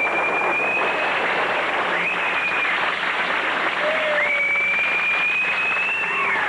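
Audience applauding, with three long, high-pitched steady whistles over the clapping, the first and last held about two seconds each.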